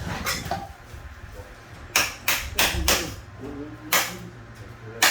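Sharp knocks of tools striking during tile repair work: one knock at the start, a quick run of four about two seconds in, then two more about a second apart.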